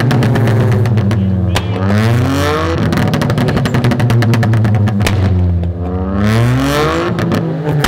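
Two 1.0-litre turbo three-cylinder engines with modified exhausts, a VW Up TSI and a Chevrolet Onix Turbo, revved hard at the same time, their pitch climbing and dropping a few times. A rapid crackle of exhaust pops and bangs runs through the revving.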